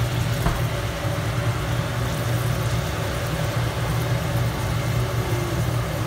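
Steady low hum and hiss of a restaurant kitchen's gas range and ventilation running under a pan of bananas in caramel flambéed with rum.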